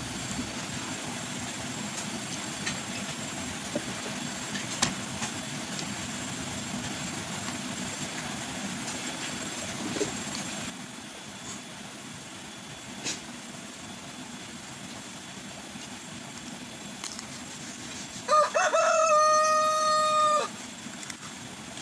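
A rooster crows once near the end, a single long call of about two seconds that rises at its start and then holds, the loudest sound here. Before it there are only scattered faint clicks over a steady background hiss.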